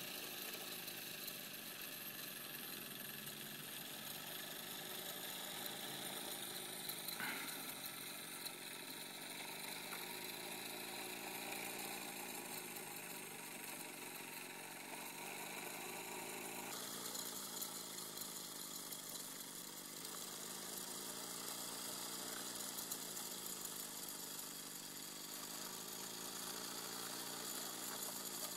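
Wilesco D14 model steam engine running steadily as it drives a six-legged walking mechanism, its sound wavering slowly; the sound changes abruptly a little past halfway.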